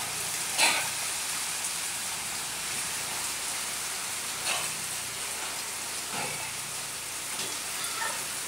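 Heavy rain falling steadily on a wet street, a constant hiss, broken by three short voice sounds about half a second, four and a half and six seconds in.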